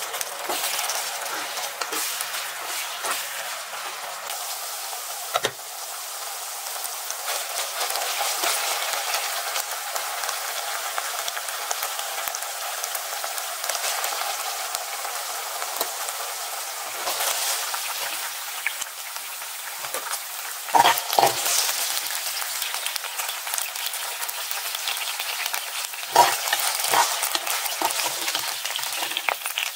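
Beef slices frying in hot oil in a nonstick pan, a steady sizzle. Over it come a few sharp knocks and scrapes of the tongs and a slotted skimmer against the pan, loudest about two-thirds of the way through and again near the end.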